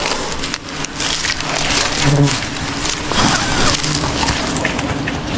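Dry palm fronds and branches rustling, cracking and snapping as a smoking leaf bundle is pushed into them against a wild honeybee comb, over a steady low hum from the swarming bees.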